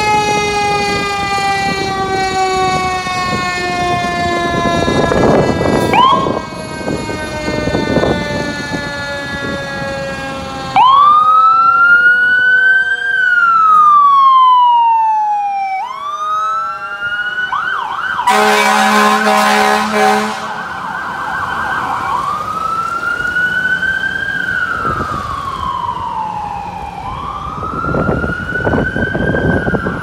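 Fire engine sirens: a Federal Q mechanical siren winds down in a long, slowly falling whine, then a siren wails up and down in slow sweeps. About two-thirds of the way through, an air horn blasts for about two seconds.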